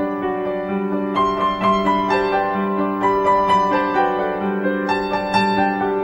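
Background music: a gentle piano melody, with sustained notes and new notes struck at an easy pace.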